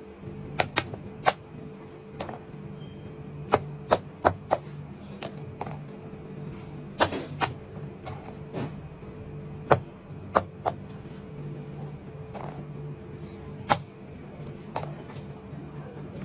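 Fidget toys being clicked and tapped: sharp, irregular clicks, about twenty of them, over a faint steady hum.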